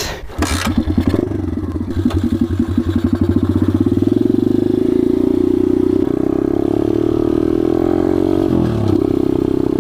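Four-stroke pit bike engine starting up on fresh oil: its firing beats quicken over the first few seconds and settle into a steady run, with a brief dip in revs near the end.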